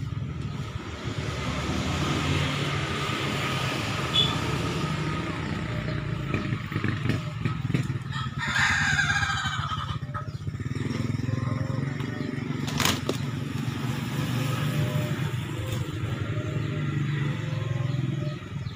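A rooster crows once, about eight seconds in, over a steady low motor drone. There is a single sharp knock a few seconds after the crow.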